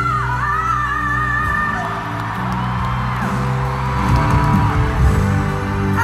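Live pop ballad: a female singer's held high note wavers into a run over the band, then for a couple of seconds the audience whoops and cheers while the band plays on.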